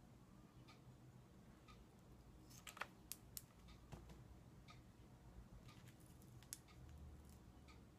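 Near silence with a clock ticking faintly about once a second. A few sharper clicks and taps come near the middle, the loudest about three seconds in and another near six and a half seconds, as small makeup items are handled.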